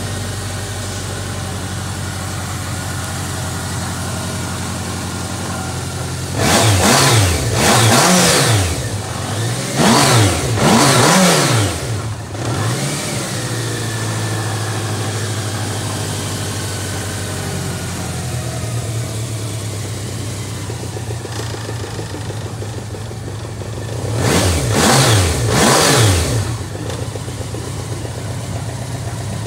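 BMW K1200 LT's inline four-cylinder engine idling steadily, revved up three times in short bursts of two quick throttle blips each, the pitch rising and falling with each blip.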